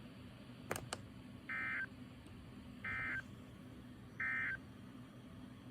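Emergency Alert System end-of-message (EOM) tones: three short, identical bursts of SAME data warble a little over a second apart, signalling the end of the alert message. Two faint clicks come just before them.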